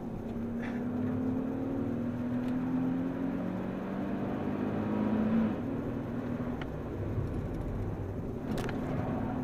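Nissan 370Z's 3.7-litre V6 pulling hard at speed, heard from inside the cabin with tyre and road noise. The engine note holds steady, then changes and eases about five and a half seconds in.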